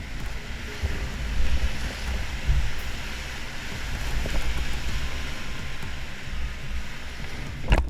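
Rushing whitewater of a big river rapid, with wind buffeting the microphone in a fluctuating low rumble. A single sharp knock sounds just before the end.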